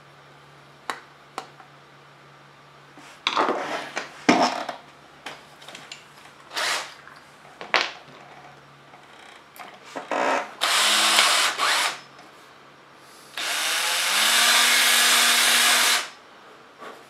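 Small electric power drill run twice, a short burst of about a second and then a longer steady run of about two and a half seconds, after a few clicks and clatter of tools being handled.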